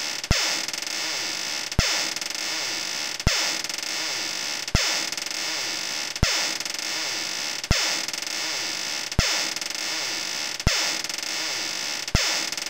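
Looped spooky door sound effect, electronically processed: nine sharp clicks in an even rhythm, about one every one and a half seconds, each followed by loud hissing noise with wavering, gliding creak-like tones.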